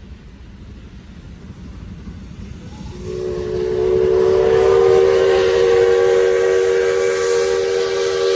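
Steam locomotive whistle blowing one long, loud blast of several tones together, starting about three seconds in. It sounds over the rising noise of the oncoming train.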